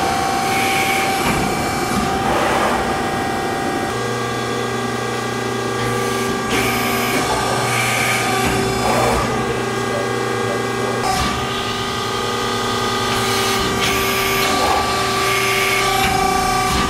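Accurpress Edge CNC hydraulic press brake running under power: a steady machine drone with several held tones and a lower hum that sets in about four seconds in, and a hiss that swells and fades every second or two.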